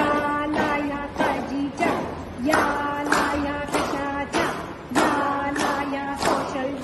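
A group of women singing a Marathi Mangalagaur folk song together in unison, clapping hands in time about once every 0.6 s, on long held notes.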